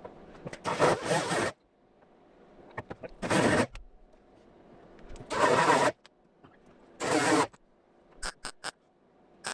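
Welding arc laying tack welds on a car's sheet-steel quarter panel: four short bursts of crackling, each under a second, with pauses between. A few quick sharp clicks follow near the end.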